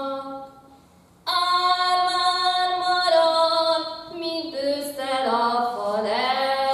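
A woman singing a Hungarian Matyó folk song solo, in long held, slow-moving notes with no instrument heard. The voice breaks off briefly for a breath about a second in, then carries on.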